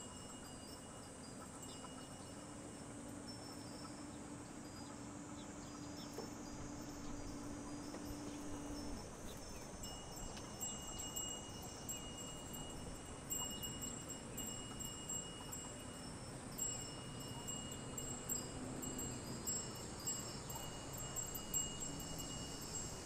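Faint outdoor ambience of insects calling in steady high-pitched tones, with a low motor hum that stops about nine seconds in.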